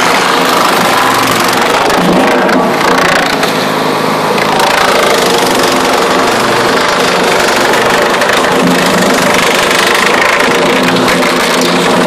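Homemade wood chipper running steadily under load, its engine driving the cutter through a 2–3 inch piece of old oak, with chips blowing out of the discharge chute.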